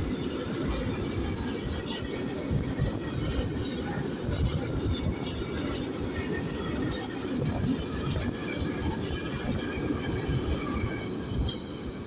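Freight train of tank wagons rolling past close by: a steady rumble of steel wheels on the rails, with scattered clicks as the wheels cross the rail joints. The sound drops just before the end as the last wagon goes by.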